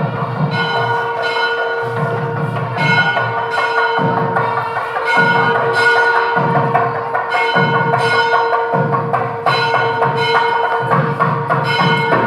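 Background music: ringing bell-like tones struck over and over above a steady held drone, with a low drum pattern underneath.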